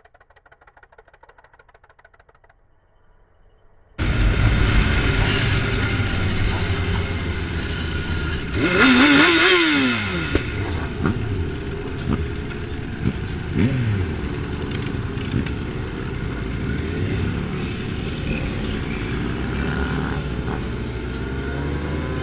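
Faint for the first few seconds, then a sudden cut to loud sport motorcycle engines riding in a group under a steady rush of noise. An engine revs up and down about nine seconds in, and again briefly around fourteen seconds.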